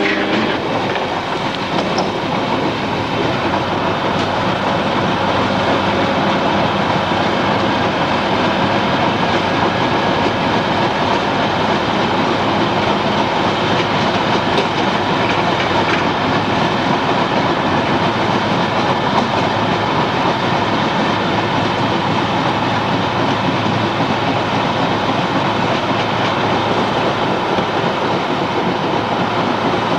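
A passenger train running on the rails: a steady, unbroken rolling noise of wheels on track.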